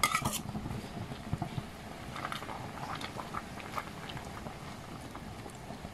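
Saluyot (jute) leaves going into a pot of vegetable soup: light, irregular rustling and small clicks, with a sharper clink at the start.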